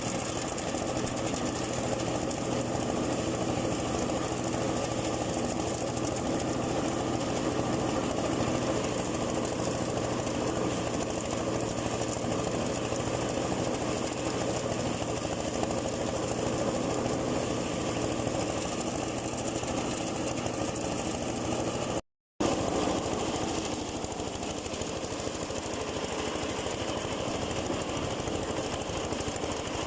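Engine-driven rice thresher running steadily, a dense mechanical clatter over a steady engine hum, with a momentary gap a little over twenty seconds in.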